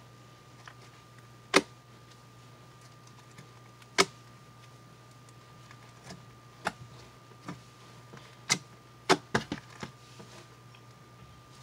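Pink slime mixed with lotion being stretched and folded by hand, giving sharp pops and clicks: a single loud pop about a second and a half in and another about four seconds in, then several smaller clicks and a quick cluster of pops near the end.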